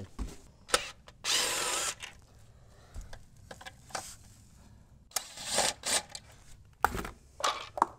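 Cordless drill-driver backing screws out of a trolling motor mount's side plate, in two short runs of under a second each, with a few clicks of handling between.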